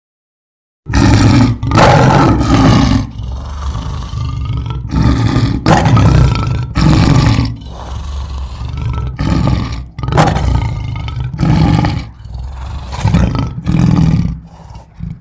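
Monster-style creature sound effect: a run of about a dozen loud, rough roaring bellows with short gaps, layered from animal recordings including sea lion calls. It starts suddenly about a second in after silence.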